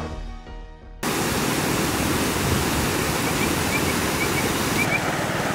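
A short musical sting dies away, then about a second in a steady rush of water cuts in suddenly: water spilling over a concrete weir and tumbling across rocks. A few faint high chirps sound near the middle.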